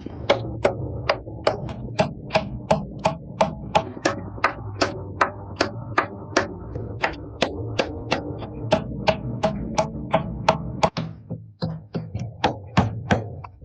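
A steady run of sharp strikes, about two to three a second, each with a brief ring, pausing briefly near the end before a few more.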